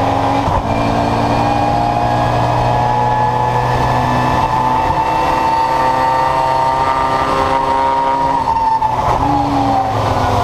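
Historic touring race car's engine at full throttle, heard from inside the stripped cabin, its pitch climbing slowly along the straight. About eight and a half seconds in the note breaks briefly, then the revs fall away near the end.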